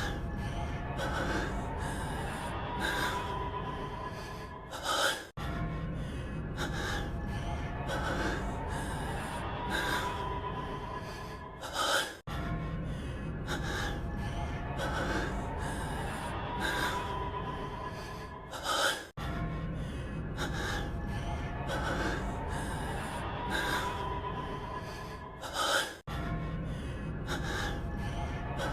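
A male anime character's voice-acted heavy breathing: quick gasping breaths over a quiet background music bed. It is a short clip looped, cutting out briefly and restarting about every seven seconds.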